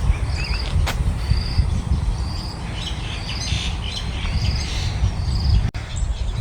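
A bird chirping: a short trilled call, high-pitched, repeated about once a second, over a low rumble.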